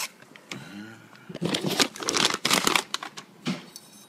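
Clear plastic bag crinkling in bursts as an AR-15 stripped lower receiver is pulled out of it. The crinkling is loudest from about a second and a half in until nearly three seconds, with one more short rustle near the end.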